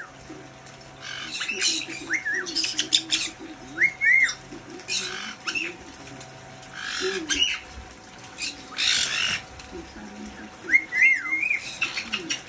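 A white-bellied caique splashing and flapping its wings in a small toy fountain bath, in bursts every one to two seconds. Short rising-and-falling chirps from the parrots come in between, with the faint steady hum of the fountain pumps underneath.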